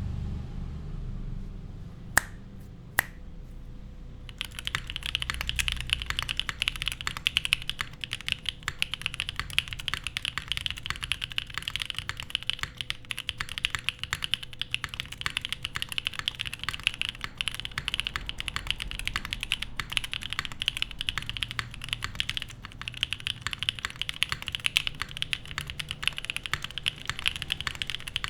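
Typing on a Geonworks F1-88 mechanical keyboard with lubed Gateron Cream Soda switches, an FR4 plate and GMK keycaps. Two single key strikes about two and three seconds in, then steady, fast typing from about four seconds on.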